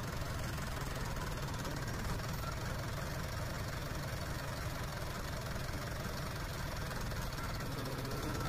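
Deutz-Fahr tractor's diesel engine running steadily at a low, even rumble.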